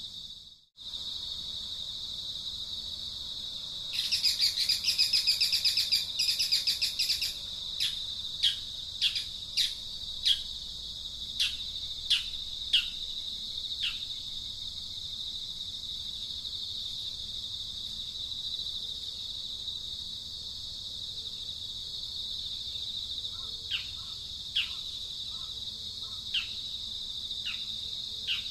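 Steady high-pitched insect drone with birds calling over it: a burst of rapid chattering about four seconds in, then a run of short, sharp downward-sliding calls, and a few more near the end.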